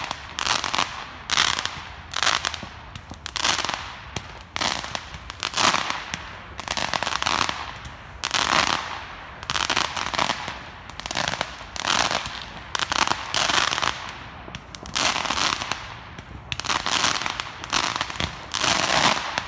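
Fireworks going off one after another in rapid succession: crackling bursts and pops, about one to two a second.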